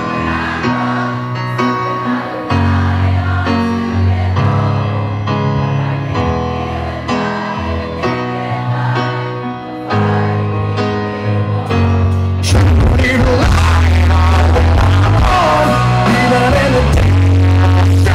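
Live rock band playing from the audience's position, recorded loud and distorted. Steady chords change every second or so, then about twelve seconds in the full band comes in louder with singing over it.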